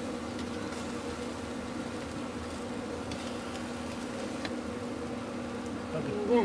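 A steady, low buzzing drone of a flying insect that hangs around without fading, with a faint click about four and a half seconds in and a voice starting right at the end.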